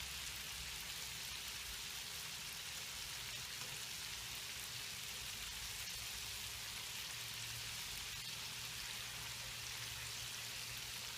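Battered chicken deep-frying in hot oil, a steady crackling sizzle.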